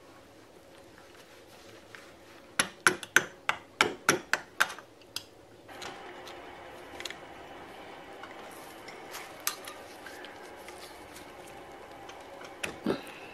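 A thin metal pick clicking and scraping against the steel rear hub of a 1959 Morris Minor while prying out the old oil seal, whose rubber is brittle and tearing apart. A quick run of about ten sharp clicks comes about three seconds in, followed by scattered fainter ones and one louder click near the end.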